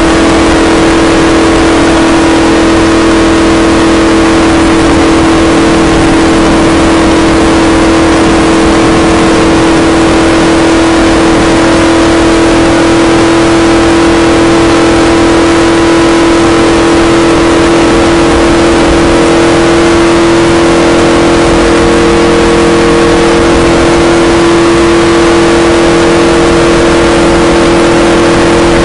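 Stock car V8 engine running at a steady high speed around the oval, heard from inside the cabin. It makes a loud, constant drone whose pitch barely changes, over heavy wind and road noise.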